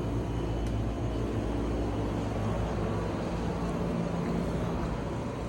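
A steady low mechanical drone with a constant hum, with a faint click just under a second in.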